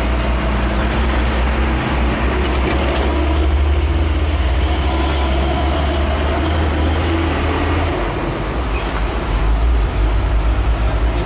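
Diesel engine of an old bonneted tow truck running with a low, steady rumble as the truck creeps forward, the note dropping about eight seconds in. Road traffic noise lies under it.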